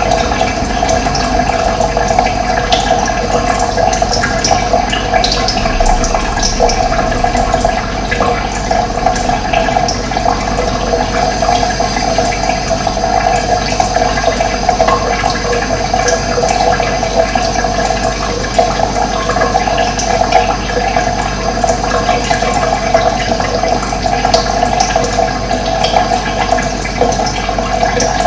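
Steady rushing of running water, with a few faint bird chirps over it.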